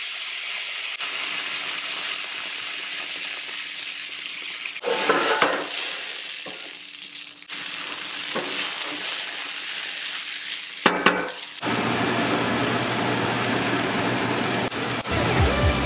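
Red wine pan sauce sizzling and bubbling as it reduces in a hot carbon steel skillet, while a wooden spoon stirs and scrapes the pan. There are louder scrapes about five seconds in and again about eleven seconds in.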